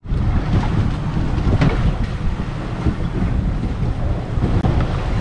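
Steady wind buffeting the microphone on an open boat, a dense low rumble over the wash of water around the hull.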